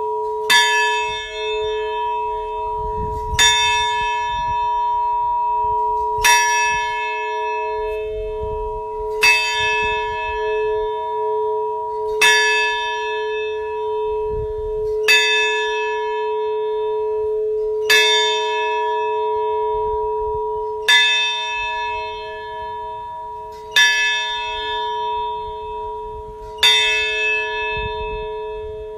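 A large bell struck slowly and evenly, about once every three seconds. Each stroke rings out with bright overtones that fade, while the bell's deep hum carries on between strokes.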